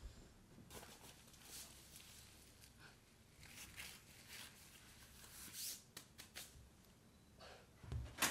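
Faint rustling and a few short scratchy noises of a dog's fabric raincoat being pulled on and fastened.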